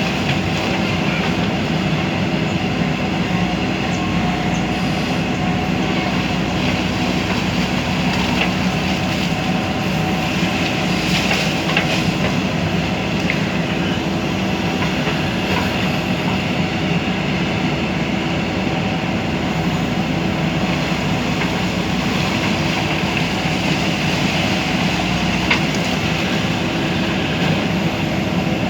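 JCB backhoe loader's diesel engine running steadily, with a few faint knocks from the machine working.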